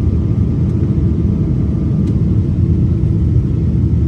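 Steady low rumble of an airliner's jet engines and rushing airflow, heard from inside the cabin at a window seat over the wing.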